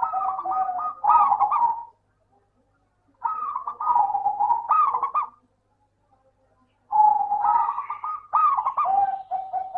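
Zebra dove (perkutut) singing: three phrases of quick, stuttering coos, each broken off by a silence of about a second and a half before the next.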